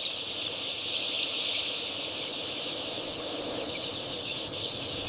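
A large flock of day-old broiler chicks peeping together: a dense, steady chorus of overlapping high chirps.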